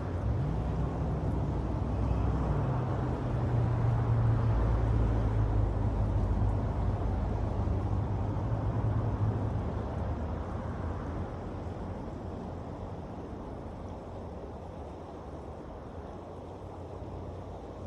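A passing motor vehicle's engine hum that drops in pitch a few seconds in, holds, then fades away over the second half, over a steady rushing noise.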